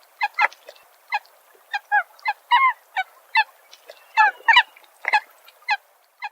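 Plovers calling: a quick series of short pitched calls, about two to three a second, some from more than one bird overlapping, with a few bent, rising-and-falling notes among them.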